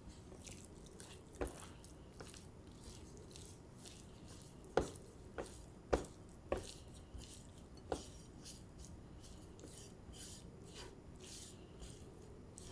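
Food preparation sounds: about six sharp, irregularly spaced knocks of a utensil or knife against a board or dish, the loudest about five and six seconds in, among softer rustling and wet handling noises.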